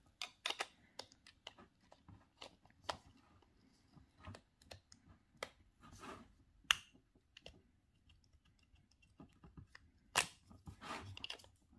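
Faint plastic clicks, taps and scrapes as a rotary tool's plastic side handle is fitted and turned onto the tool's nose, with a sharper click a little after ten seconds in.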